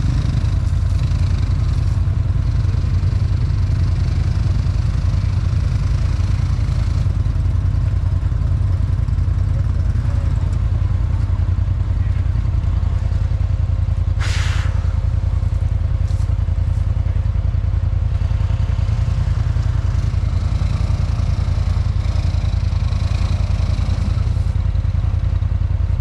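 Can-Am Outlander 1000 XMR ATV's V-twin engine idling steadily with the machine stopped, a constant low rumble with no revving. About fourteen seconds in, a brief hiss cuts across it.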